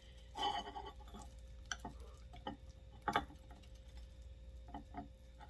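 A spoon tapping and scraping against a dish as it digs into thick, cheesy crab rangoon dip: a handful of light, uneven clicks, the strongest about three seconds in.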